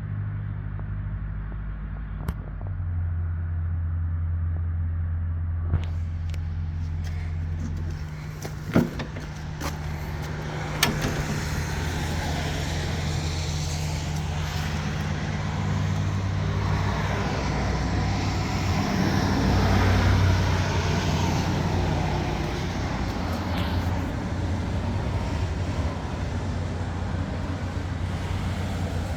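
Takeuchi TL8CRW tracked skid steer's diesel engine running steadily, with a few sharp knocks in the first eleven seconds. From about six seconds in a rougher working noise joins the engine and grows louder, peaking about two-thirds of the way through.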